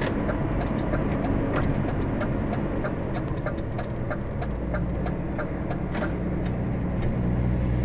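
Steady drone of a DAF XF truck's diesel engine and road noise heard inside the cab, with faint ticks about twice a second; the low engine hum grows stronger about five seconds in.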